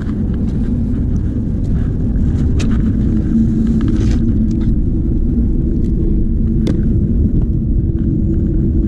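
An engine running steadily with a low droning hum. A few light clicks and rustles sound over it.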